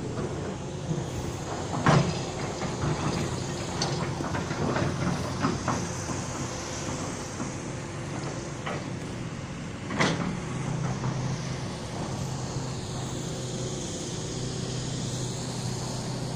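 A motor running steadily with a low drone. A few sharp knocks come over it, the loudest about two seconds in and about ten seconds in.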